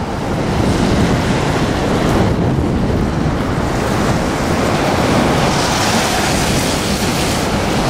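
A steady roar of falling water from the American Falls at Niagara, mixed with wind buffeting the microphone, so the rushing swells and eases.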